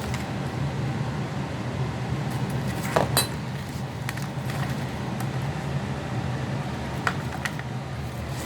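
A steady low mechanical hum underneath, with a few light clicks and knocks of small parts being handled, about three seconds in and again near seven seconds.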